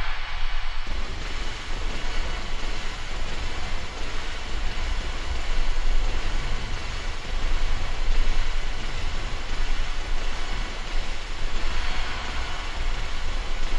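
Dark ambient soundscape: a dense wash of noise like surf or wind over a deep low rumble, swelling and easing without any clear strikes.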